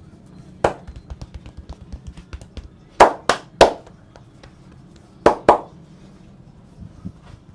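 Hands striking the body in a percussive barber massage: a loud strike, a quick run of lighter chopping taps at about six a second, then three hard strikes in a row and two more near the end.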